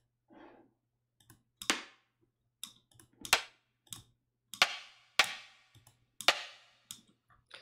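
Rimshot and percussion hits synthesized by FM synthesis in Ableton's Operator: about five sharp, clicky strikes with short ringing tails and softer ticks between them, in a loose, uneven rhythm.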